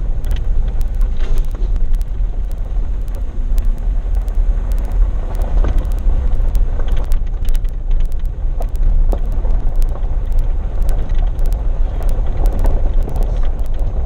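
Vehicle driving along a gravel road, heard from inside: a steady low rumble of engine and tyres, with frequent clicks and rattles from the gravel and the body.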